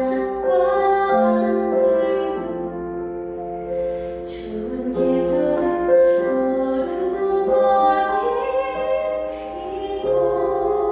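A woman singing a slow musical-theatre ballad in long held notes, with piano accompaniment.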